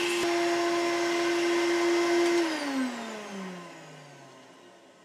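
Vacuum cleaner running with a steady motor whine while cleaning wood chips out of freshly routed grooves. It is switched off about two and a half seconds in, and its whine falls in pitch and fades as the motor spins down.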